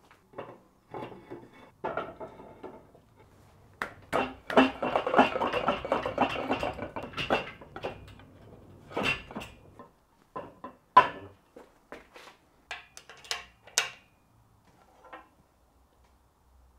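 Scattered metallic clinks, knocks and clatter of bolts, tools and aluminium extrusion parts being handled as the frame's bolts are fitted and tightened. A denser stretch of rustling and scraping runs from about four to eight seconds in, and the sharpest clicks come between about nine and fourteen seconds.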